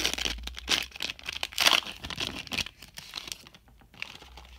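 Foil wrapper of a trading-card pack being torn open and crinkled by hand, a dense crackle that thins out and fades about three seconds in.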